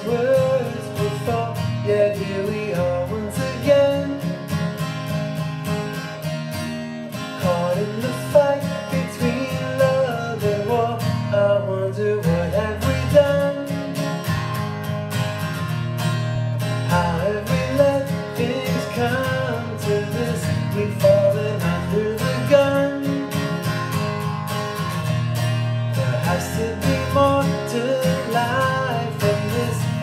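Music: a steel-string acoustic guitar strummed in a slow, steady accompaniment.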